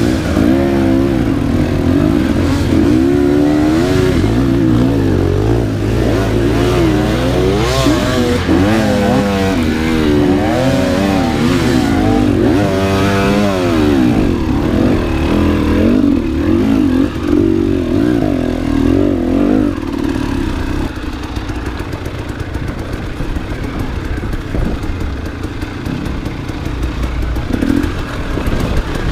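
Enduro motorcycle engine revving up and down over and over under throttle. It settles to a lower, steadier note about two-thirds of the way in.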